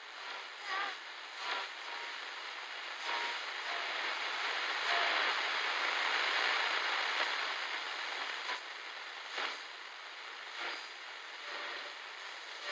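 Radio static hissing as a radio is tuned between stations, with several clicks and a few brief tones breaking through.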